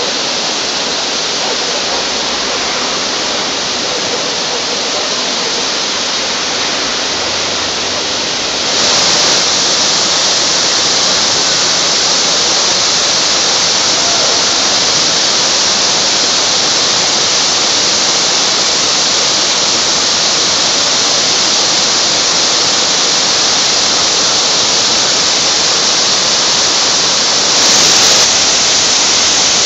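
Large fountain running: water pouring in sheets over wide tiered basins and spraying from jets into the pool, a steady rushing of falling water. It grows louder about nine seconds in and surges briefly near the end.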